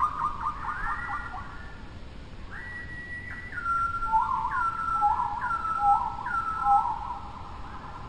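Clear, high whistled notes in repeating phrases: held tones that step down in pitch, and in the second half short notes sliding up and down, about one a second.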